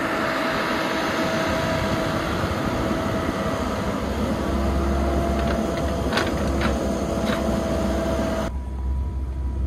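Komatsu PC78US mini excavator running and working, its engine and hydraulics making a steady whine over a dense rumble as the arm swings and lifts the bucket. The low rumble grows stronger about halfway through, a few faint clicks come around six to seven seconds, and the sound turns duller near the end.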